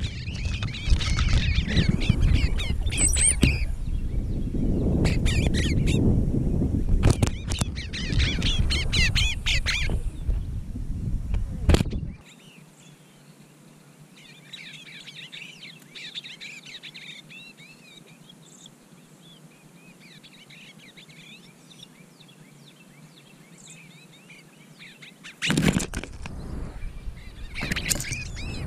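Small songbirds chirping and twittering in quick, overlapping calls. A heavy low rumble sits under them for the first twelve seconds, stops suddenly, and comes back near the end.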